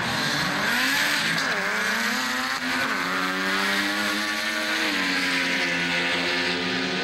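Street cars launching off the drag strip's start line and accelerating hard. The engines climb in pitch and drop back several times as they shift through the gears.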